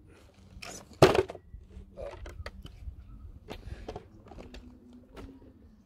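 A loud sharp knock about a second in, then a string of lighter clicks and knocks as a small RC rock crawler is handled and repositioned by hand on granite rock.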